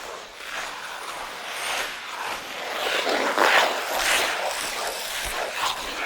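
Ice skate blades scraping and gliding across ice in a series of swishing strokes, building to the loudest strokes around the middle.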